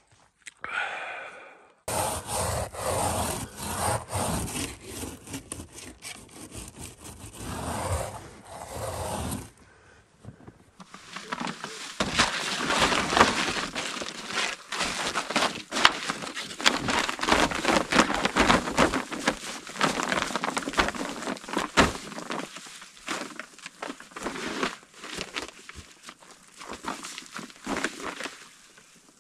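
Heavy-duty mylar emergency blanket crinkling and rustling as it is handled and shaken out: a dense run of crackles that fills the second half. Before it, from about two seconds in, several seconds of rough rushing, crunching noise.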